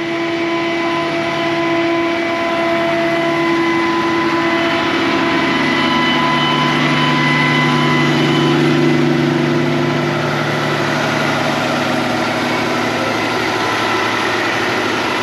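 A vehicle engine idling steadily, an even drone whose pitch shifts slightly around the middle.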